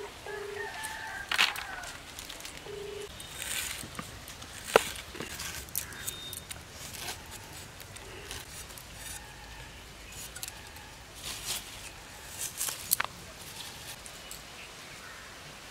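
Chickens clucking and a rooster crowing, mixed with the sharp clicks and scrapes of a blade cutting peeled taro corms; one click about five seconds in stands out as the loudest.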